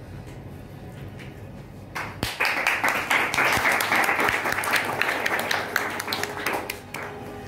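Audience applause breaking out about two seconds in and dying away near the end, over a faint low hum.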